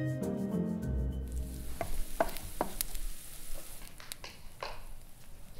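Eggs sizzling in a frying pan as a spatula stirs and scrapes against the pan in short irregular strokes. Music ends about a second in.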